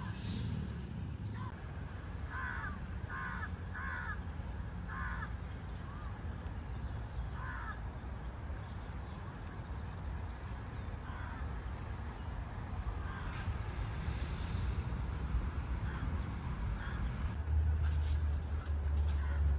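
Crows cawing: a run of about five calls a few seconds in, then fainter, scattered calls. Under them is a steady low rumble that grows louder near the end.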